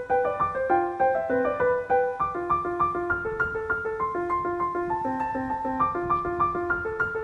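Background piano music: a gentle melody of short single notes at an even, flowing pace.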